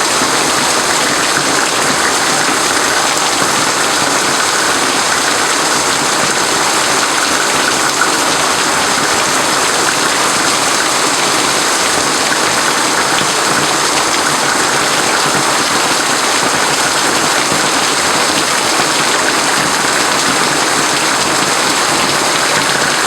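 Heavy rain from a severe thunderstorm, pouring down in a steady, loud hiss.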